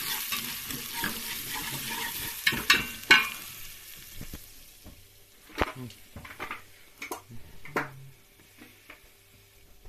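Red lentils sizzling in a pot on the stove as they are stirred with a wire whisk, with loud scrapes of the whisk against the pot about two and a half to three seconds in. The sizzle dies away by about four seconds in, followed by a few sharp clinks and knocks.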